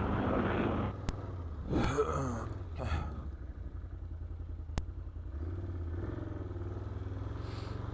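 ATV engine idling steadily, its pitch stepping up slightly about five seconds in, with a couple of sharp clicks.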